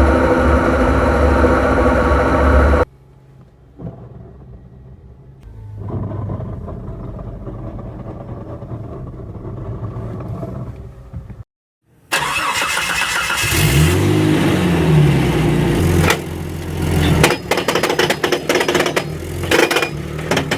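Example recordings of a vehicle with a damaged transmission gear, spliced together: a loud steady drone that cuts off suddenly, a quieter stretch of running, a brief gap, then a revving pitch that rises and falls followed by repeated sharp metal knocks, typical of a failing gear.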